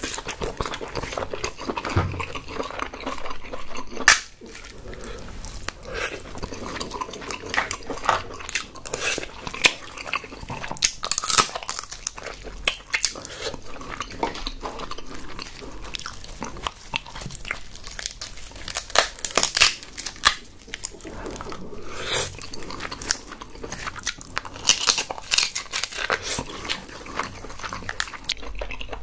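Close-miked chewing and wet mouth sounds of eating king crab meat, with crackles and clicks from the crab shell being handled and pulled apart by gloved fingers. There is a sharp click about four seconds in.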